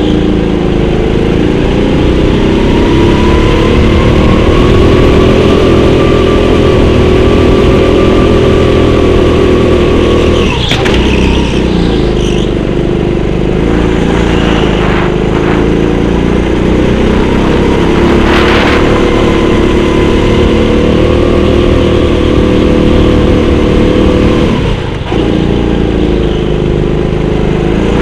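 Go-kart engine running hard under throttle, its pitch rising and falling gently through the lap and dropping sharply twice, about ten seconds in and near the end, as the throttle is lifted for corners.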